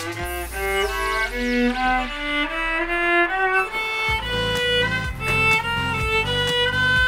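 A viola being bowed, playing a melody of short notes that step up and down in pitch.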